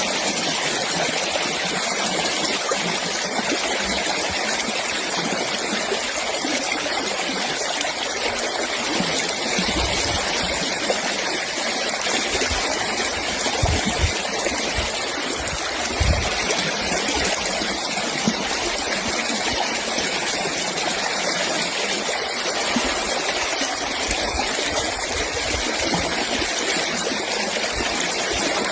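Fast-flowing stream water rushing steadily, with a few dull low thumps about halfway through.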